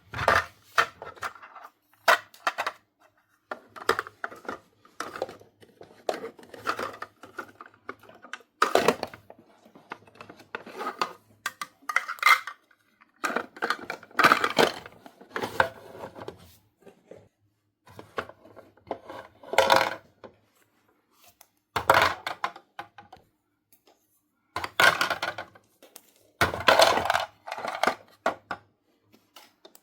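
Small plastic toy pieces being handled, clicking and clattering as they are picked up and set down, in irregular bursts with short quiet gaps.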